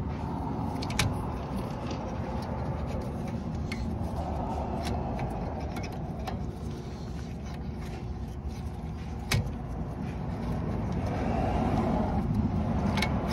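A few light clicks and taps of hands working at a rear brake caliper and its pad wear sensor wire, over a steady low background rumble.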